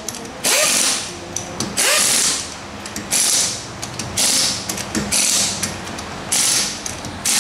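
Pneumatic impact wrench hammering car lug nuts in short bursts, about seven in all, with brief pauses between them as the nuts are run tight to remount the wheel.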